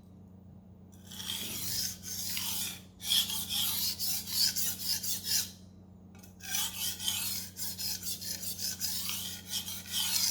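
Steel knife blade drawn over a Naniwa splash-and-go water stone in light, rapid strokes to deburr the edge: two runs of quick rasping scrapes with a short pause between.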